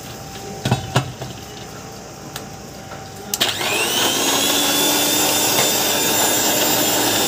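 A few knocks as the jar is set on an electric mixer-grinder, then about halfway through the motor is switched on: its whine rises briefly as it spins up, then it runs steadily, blending lime juice with ice.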